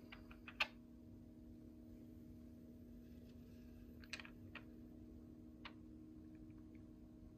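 Near silence: the faint steady hum of a freshly powered-on gaming PC's fans and AIO water-cooler pump, with a few faint clicks scattered through.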